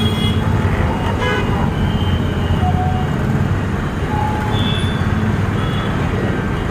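Busy city street traffic: a steady rumble of vehicle engines with short horn toots scattered through it.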